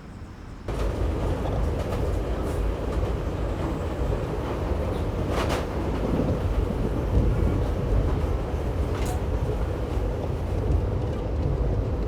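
A loud, steady low rumbling noise that starts abruptly about a second in, with a couple of brief clicks over it.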